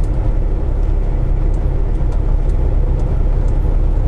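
Semi truck's diesel engine running, a steady low drone heard inside the cab while creeping in highway traffic.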